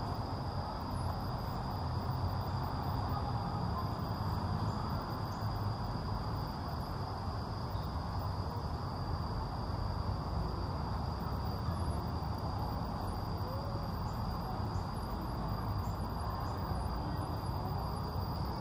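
Outdoor park ambience: a steady low background rumble with a continuous high-pitched insect drone above it.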